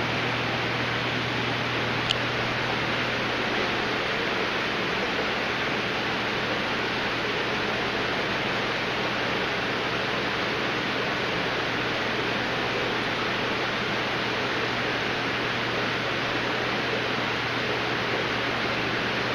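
Aquarium filters and air pumps running: a steady rushing noise with a constant low hum. A single small click about two seconds in.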